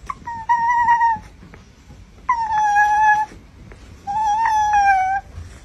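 Shiba Inu whining with a plush toy held in its mouth: three long, high whines of about a second each, with short pauses between.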